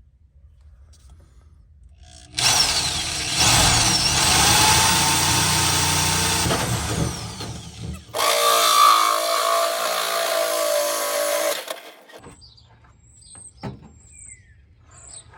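Drill spinning a Milwaukee 2-inch hole saw through the van's sheet-metal body. It runs in two stretches of several seconds each, starting about two seconds in and stopping near twelve seconds, and the second stretch carries a ringing whine as the teeth bite the metal.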